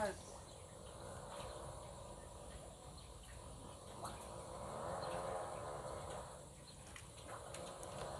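Steady, high-pitched drone of insects, with a faint wavering sound swelling and fading in the middle.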